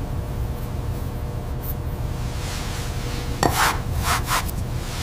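A sculpting tool scraping and rubbing on clay, with a sharp click about two-thirds of the way in followed by about three quick scraping strokes, over a steady low rumble.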